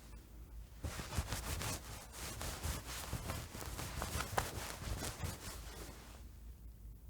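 Jacket fabric rustling and rubbing as it is moved, a noisy swish full of small crackles that comes in bursts, dropping away for about a second near the end.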